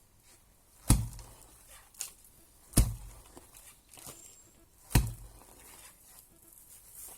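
Three heavy, sharp strikes of a hand tool, about two seconds apart, with a lighter knock between the first two.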